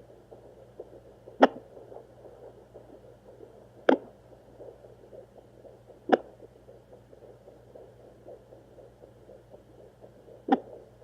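Fetal doppler sound of an unborn baby at 32 weeks: a fast whooshing heartbeat, cut through four times by sharp, loud thumps from the baby's hiccups, the first three about two and a half seconds apart and the last after a longer gap.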